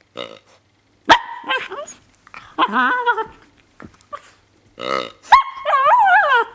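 Young miniature pinscher making strange play sounds: a string of short barks and odd whining and growling calls whose pitch wavers up and down, the longest call near the end.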